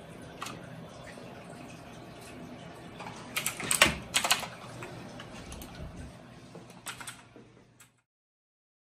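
Typing on a backlit mechanical computer keyboard: scattered keystrokes, a quick run of louder ones about three and a half seconds in and a few more near seven seconds, before the sound cuts off abruptly.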